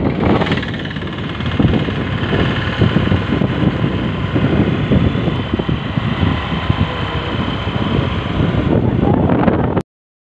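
Road and wind noise from a moving vehicle: a rough, fluttering rumble of wind on the microphone over the running engine. It cuts off suddenly near the end.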